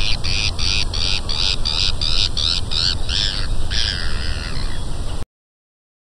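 Seagull calling: a rapid run of about a dozen short, sharp calls, about three a second, ending in one longer drawn-out call, over a steady low rumble. It starts and stops abruptly.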